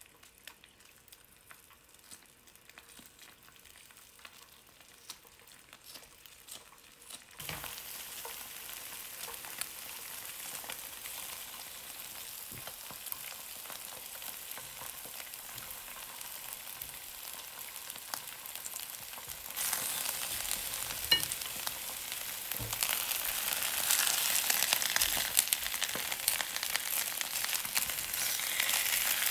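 Eggs frying with spinach and green onions in a nonstick pan. The sizzling is faint with small ticks at first, jumps up suddenly about seven seconds in, and gets louder twice more in the second half, with scattered crackles.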